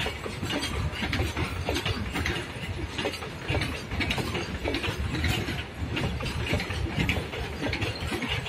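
Freight train hopper wagons rolling past: a steady low rumble of wheels on rail, with irregular metallic clicking and clanking from the wheels and couplings.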